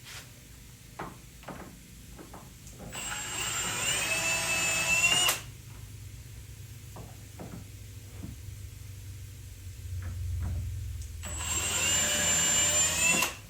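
Power drill driving screws into cabinet hardware in two runs of about two seconds each, the motor whine rising as it spins up and cutting off suddenly. Small clicks and knocks of handling fall between the runs.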